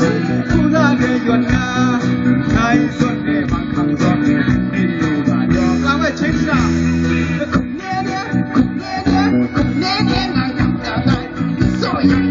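Live band music played loud through a PA, with guitar prominent and a singer's voice over it.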